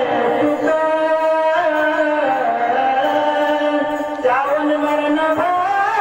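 A man singing a Marathi devotional recitation in long, held, ornamented notes that bend up and down, over a steady drone; a new phrase begins about four seconds in after a brief dip.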